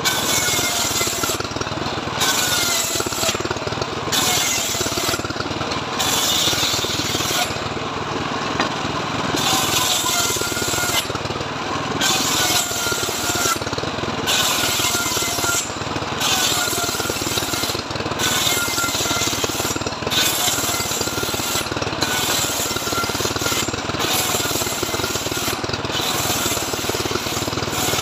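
Homemade circular saw bench cutting mahogany boards. It runs loud and continuously, and its whine dips in pitch as the blade bites into each board, about every two seconds.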